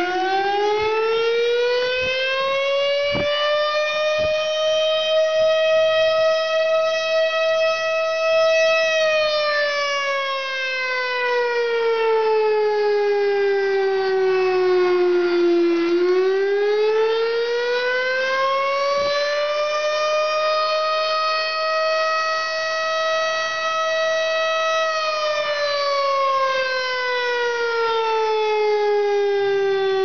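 Fire station siren sounding a slow wail. Its pitch rises over about five seconds, holds high for a few seconds, falls over about seven seconds, then rises, holds and falls again. It is sounding for a dwelling fire call.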